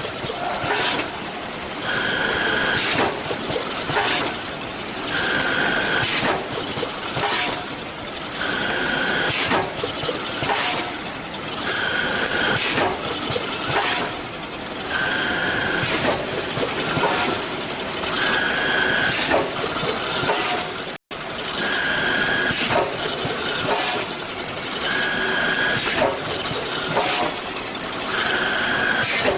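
Automatic powder weighing and packaging machine running through its cycle, about once every three seconds. Each cycle brings a burst of clicks and knocks and a short, steady high tone lasting about half a second.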